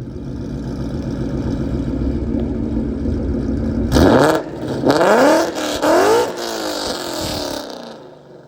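Ford Mustang V8 exhaust with an off-road X-pipe: the engine idles, then is blipped three times in quick succession about a second apart, each rev rising sharply and falling back, before settling and fading out near the end.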